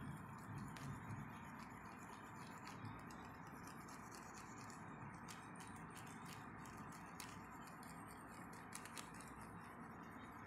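Faint scratching and ticking of a wax crayon scribbled rapidly back and forth across a glossy sheet, over a steady low hiss.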